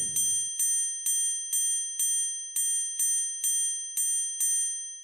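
Bright metallic chime sound effect struck about ten times, roughly twice a second, each strike ringing at the same pitch; it fades away near the end.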